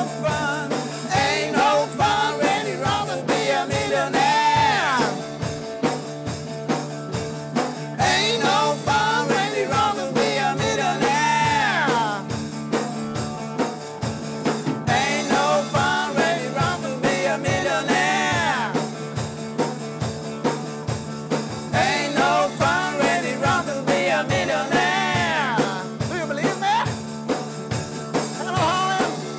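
Rock band playing a blues-tinged rock and roll song with a steady drum beat and a lead voice or guitar line that bends down in pitch several times.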